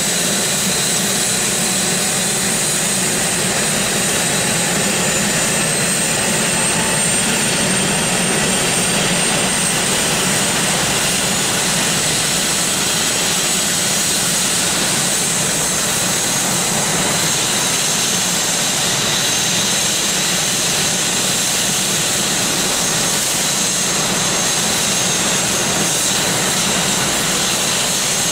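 Airbus EC145 helicopter running on the ground with its rotors turning: a steady turbine whine with a few high, thin tones over a constant rush of engine and rotor noise.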